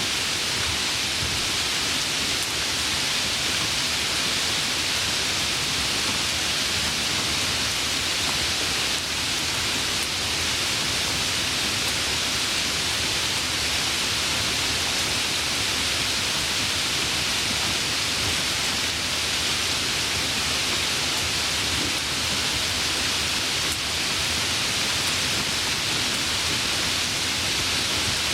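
Heavy rain falling steadily, an even hiss with no breaks or thunder.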